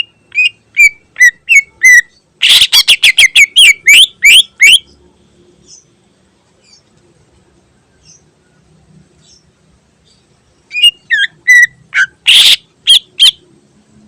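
Green leafbird (cucak ijo) singing: a string of sharp whistled chirps, then a fast, loud run of notes. After a pause of several seconds comes another burst of chirps near the end.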